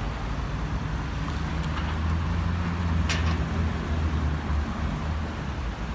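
Road traffic: a steady low engine rumble from vehicles on the road, with one brief sharp tick about three seconds in.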